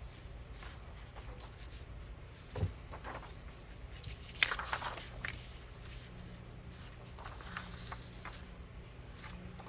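Sheets and cut-outs of paper being handled on a craft table: light rustles and small taps, with a low thud about two and a half seconds in and one sharper click a little after four seconds.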